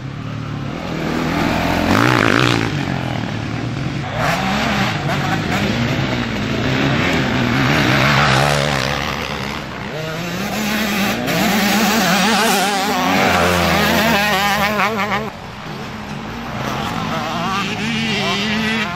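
Motocross dirt bikes racing past on a dirt track, their engines revving up and dropping back over and over as riders accelerate out of turns and shift, several bikes overlapping. The engine noise eases off briefly about fifteen seconds in, then picks up again.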